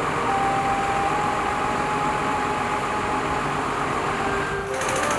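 Construction machinery running steadily with a faint high whine; a rapid rattle sets in near the end.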